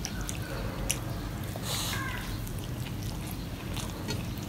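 Fingers mixing cooked rice and fried okra on a steel plate: soft squishing with a few light clicks, the first two about a tenth of a second and just under a second in.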